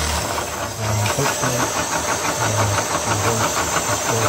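Bosch cordless drill driver spinning the 3D-printed plastic gear train of a yarn winder, with a fast, even clicking from the mechanism over a low motor hum. The sound dips briefly just under a second in, then picks up again.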